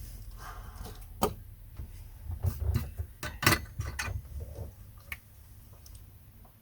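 Scattered light clicks and knocks of tools and the board being handled on a workbench during soldering, the loudest about three and a half seconds in, over a low steady hum.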